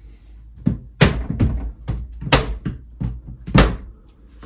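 Plastic UPVC glazing beads being pushed and knocked into place around a door panel: a run of sharp knocks and clicks, about four loud ones with smaller taps between.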